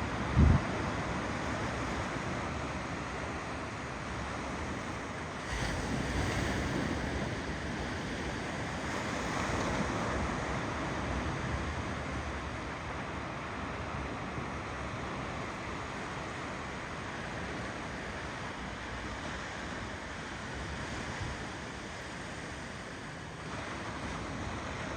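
Ocean waves rolling in: a steady wash of surf that swells twice in the first half. A brief low thump about half a second in.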